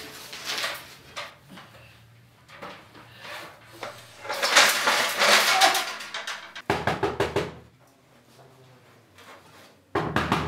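Aluminium ladder handled and climbed: rustling and scraping, loudest in the middle, a quick run of knocks about seven seconds in, and a sudden thud near the end.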